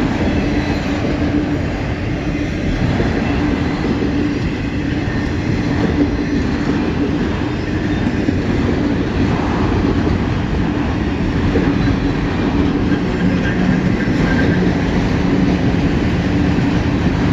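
CN freight train's cars rolling past: a steady, loud rumble of steel wheels on the rails with some clickety-clack, unbroken throughout.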